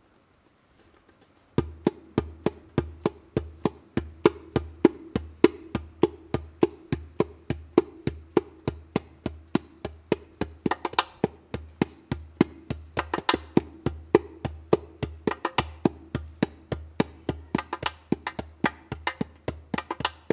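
Djembe played with bare hands: after a short pause, a fast, steady rhythm of hand strokes begins about a second and a half in and keeps going, several strokes a second.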